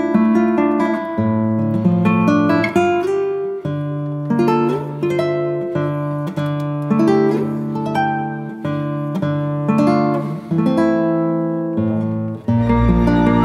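Instrumental background music: acoustic guitar picked and strummed in a run of changing chords. Near the end a fuller section comes in, with a deep sustained bass under it.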